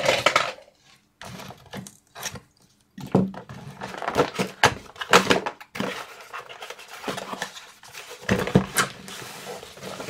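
Cardboard kit box and its paper cover being handled: a series of taps, knocks and scrapes, with a steadier sliding rustle near the end as the cover slides off the foam parts tray.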